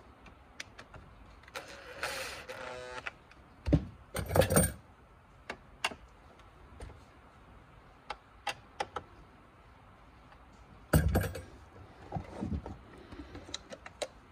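A cordless impact driver runs in two short bursts, about 4 s and 11 s in, driving screws into the side mirror's plastic base. In between come scattered clicks and rattles as the plastic mirror parts and wiring are handled.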